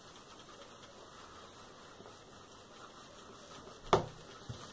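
Steam iron sliding over a sheet of paper on a wooden table, a faint rustle. About four seconds in comes a sharp knock, followed by a lighter one half a second later.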